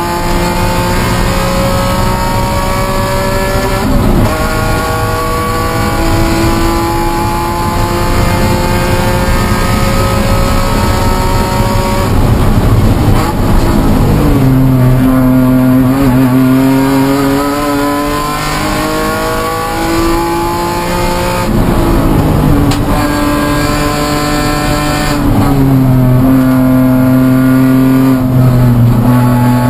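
Inside the cabin of an E46 BMW M3 race car at speed: its S54 straight-six engine runs loud under load. The revs climb steadily and drop sharply several times as it changes gear.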